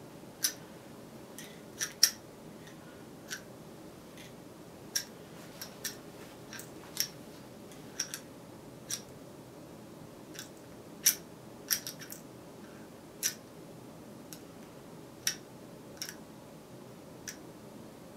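A string of short, sharp clicks at irregular intervals, roughly one a second, some much louder than others, over a faint steady room hum.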